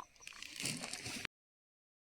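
About a second of faint rustling, liquid-like noise that cuts off abruptly into complete digital silence.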